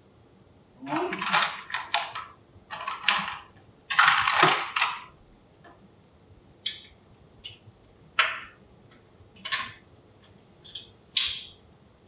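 Metal clinking and scraping from the refrigerator's vacuum can as it is seated and fastened by hand at its top flange. A cluster of jangling rattles comes over the first few seconds, followed by four or five separate sharp clinks.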